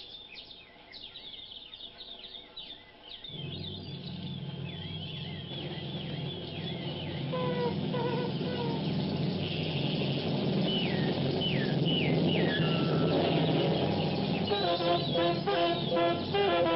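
Repeated descending whistled bird calls on a jungle soundtrack. About three seconds in, a low steady drone and a hiss come in and swell. Near the end, a quick rhythmic run of pitched notes begins as music takes over.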